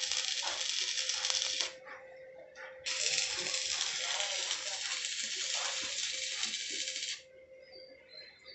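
Electric arc welding crackling in two runs: a short one that stops after under two seconds, then, after about a second's pause, a longer run of about four seconds that cuts off sharply as the arc is broken.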